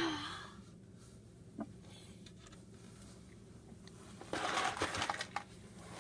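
Faint handling noise: a single small knock about a second and a half in, then about a second of rustling and scraping with a few clicks, as if hands were moving over the table.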